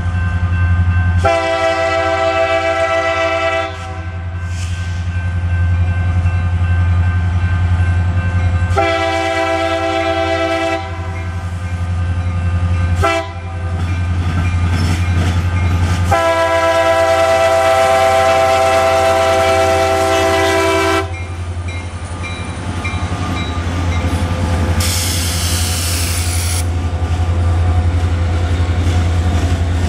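CSX freight train's diesel locomotive air horn sounding the grade-crossing signal, long, long, short, long, in a chord of several notes. Under it the locomotives' diesel engines rumble steadily as the train rolls up and passes, with a brief hiss near the end.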